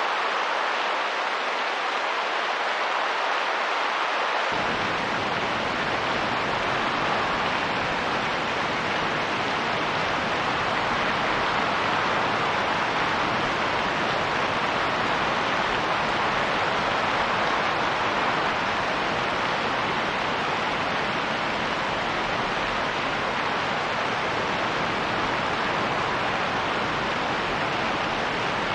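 Steady rain and wind, an even hiss without any distinct drops or gusts. About four seconds in, a low rumble joins underneath and stays.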